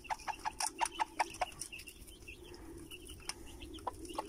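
Mother hen clucking in a quick series, about five short clucks a second, then only a few scattered clucks after about a second and a half. It is a hen's food call to her chicks at the feed.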